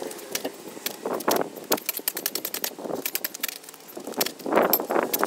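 Spade digging into soil and gravel: a run of scrapes and sharp clicks as the blade cuts in and lifts earth, loudest near the end.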